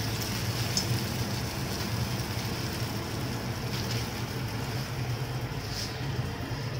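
Urad dal batter ball (bhalla) deep-frying in hot oil in a kadhai: a steady sizzle and bubbling, over a low steady hum.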